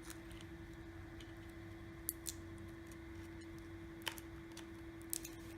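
A few faint, sharp little clicks and taps of a phone's parts being handled, over a steady low electrical hum.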